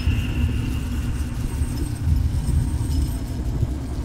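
Horror ambience soundscape: a deep, steady rumbling drone. At the very start a faint high squeal slides slightly down and fades within about a second.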